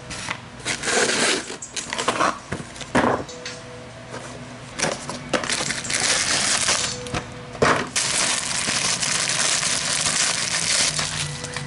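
A new cabin air filter is slid out of its cardboard box and handled in its plastic wrapping, making dense crinkling and rustling. A few scrapes and knocks come first, as a filter is set down on concrete.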